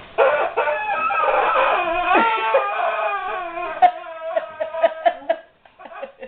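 German Shepherd whining and whimpering, a string of high, wavering whines that rise and fall in pitch, breaking into a run of shorter, clipped cries about four seconds in before trailing off near the end.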